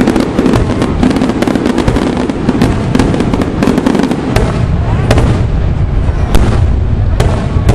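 Daytime fireworks: a rapid, unbroken barrage of sharp bangs and crackles from bursting shells, with a deeper rumble joining about halfway through.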